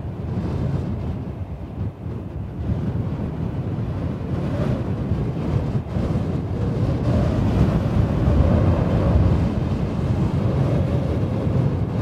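Strong wind blowing and howling: a low, gusting rush with a faint moaning tone that comes in about four seconds in, swelling to its loudest a few seconds before the end.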